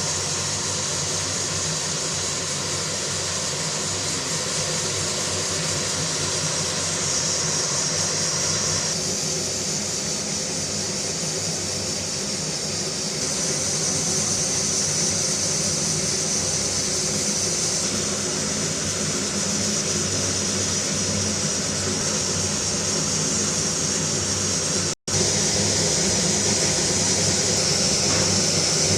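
Chicken pieces frying in hot oil: a steady sizzle with a low hum under it, cutting out for an instant near the end and carrying straight on.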